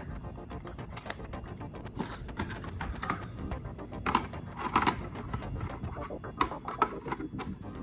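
Irregular clicks, taps and scraping of a handheld smartphone gimbal stabilizer being handled, with a few louder clicks about two, four and five seconds in, over faint background music.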